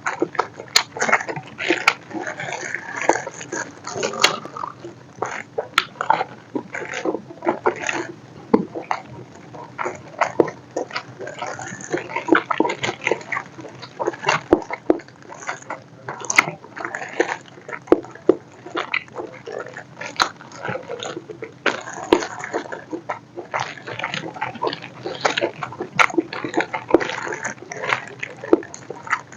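Close-miked eating sounds: biting and chewing with irregular wet, clicky mouth noises, without a break.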